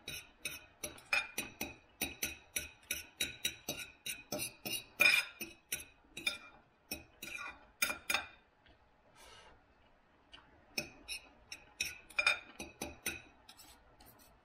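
Knife and fork clinking and scraping on a plate while cutting up and eating a meal: a quick run of sharp clicks, a few a second, with a lull of about two seconds past the middle before the clicking resumes.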